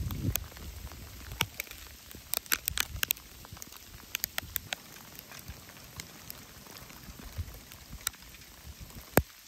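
Sleet, small ice pellets, falling and ticking on surfaces in irregular sharp clicks, a few each second, one click near the end louder than the rest. A brief low rumble sits under the first half-second.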